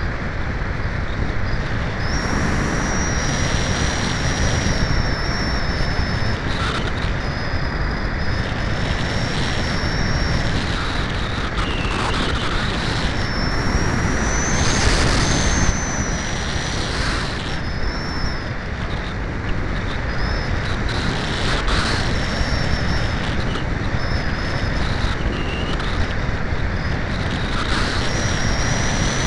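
Wind rushing over a Cularis RC glider in flight, picked up by its onboard keychain camera as a loud, steady rush. A thin high whine rises and falls through it and breaks off every few seconds.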